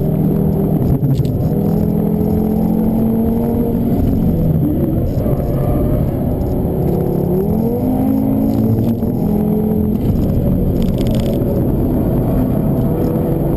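Audi TT RS turbocharged 2.5-litre inline-five engine heard from inside the cabin, pulling hard at mid-to-high revs over road and tyre noise. The pitch eases down about four to five seconds in, then climbs again a few seconds later and holds.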